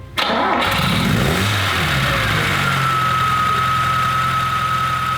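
An engine starting abruptly, rising and falling in pitch for a couple of seconds, then settling into a steady idle with a thin high whine over it.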